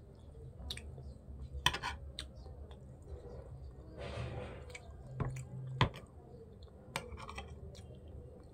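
Close-up eating sounds: chewing of rice and fish, with scattered sharp clicks of a spoon and fork against the plate.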